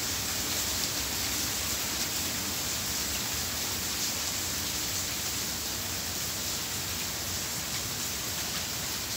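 Heavy rain shower falling steadily: an even, unbroken hiss of downpour.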